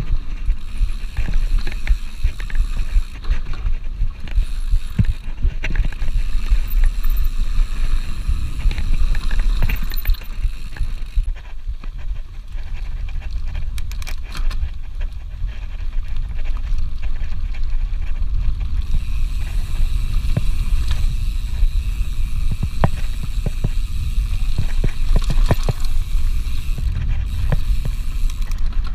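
Mountain bike ridden fast down a dirt forest trail: the tyres run over the dirt, and the bike knocks and rattles over bumps with many short sharp clicks. A steady low wind rumble sits on the camera microphone.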